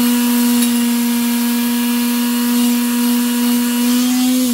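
Lathe spinning a stainless steel exhaust pipe while it is polished with abrasive paper: a steady motor hum under a hiss of rubbing. Near the end the lathe is switched off and the hum falls in pitch as it spins down.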